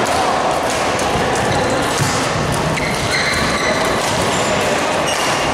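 Badminton doubles rally in an indoor hall: sharp racket hits on the shuttlecock and short high squeaks of court shoes on the floor, over a steady noisy hall background.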